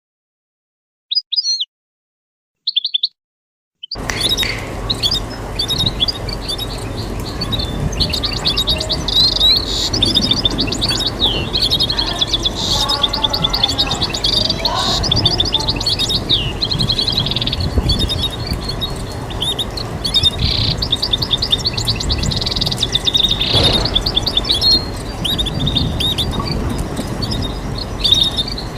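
European goldfinch singing: a few short, separate chirps over silence, then from about four seconds in a continuous fast twittering song, over steady background noise.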